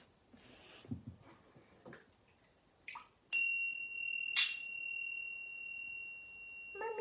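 Small brass hand bell rung twice, about a second apart, with a clear high ring that fades slowly.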